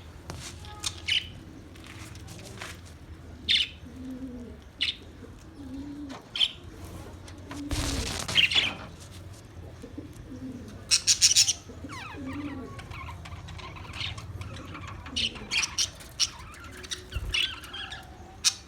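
Australian parrots calling in short, sharp chirps and squawks, with a loud cluster of calls about eleven seconds in and low cooing notes between them. A flurry of wing flapping about eight seconds in.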